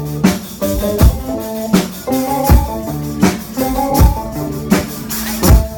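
A live band playing: electronic keyboard holding chords that change step by step, over a steady drum beat with a hit about every three-quarters of a second.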